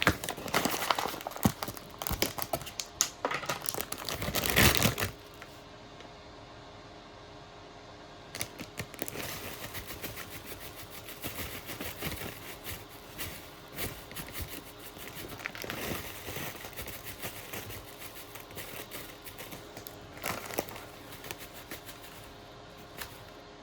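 A packet of brown sugar crinkling and rustling as it is handled and the sugar is tipped and spooned onto the scales. The loudest crinkling comes in the first five seconds, then lighter, scattered crackling follows.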